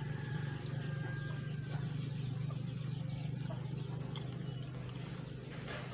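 Steady low hum, with faint wet mouth sounds of someone biting and chewing a ube-dipped strawberry.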